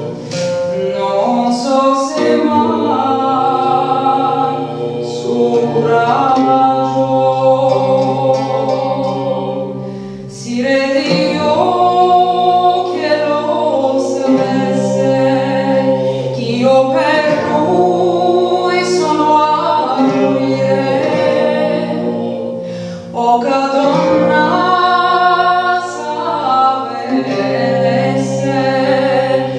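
A woman singing a slow song in long held phrases, accompanied by a plucked lute-like string instrument.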